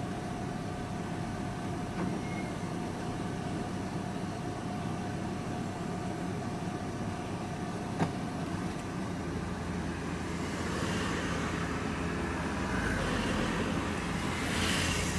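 Steady engine and road rumble heard from inside a vehicle's cab, creeping along in slow traffic, with a faint steady whine for about the first half. Near the end the noise builds as a motorcycle comes up alongside.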